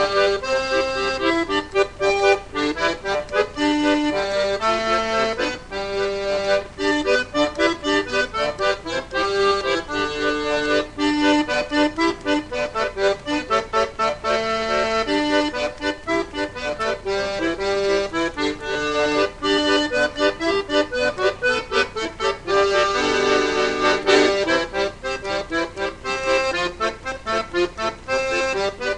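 Chromatic button accordion playing a country-style tune: a melody over a steadily pulsing accompaniment.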